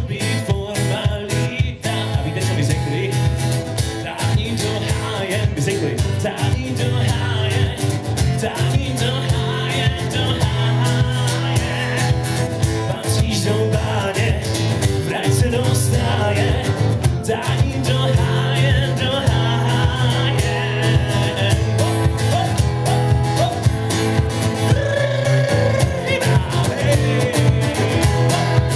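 Live acoustic guitar strummed in a steady rhythm, with a man singing over it.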